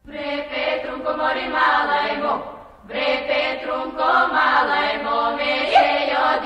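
Bulgarian folk-style singing: voices in harmony over a held low note. Two sung phrases with a brief break about three seconds in.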